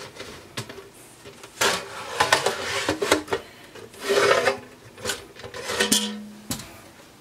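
The metal wraparound cover of an Agilent E3646A bench power supply scraping and rubbing as it is slid off the chassis, with several knocks and clicks along the way and a short low squeak near the end.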